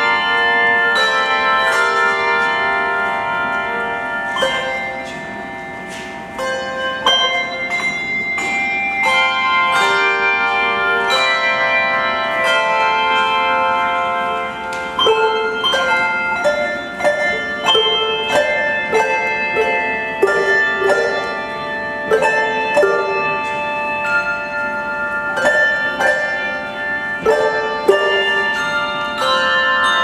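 Handbell choir playing a piece on brass handbells: struck notes and chords ring on and overlap. The music softens about five seconds in, then the strokes come quicker and more often from about halfway.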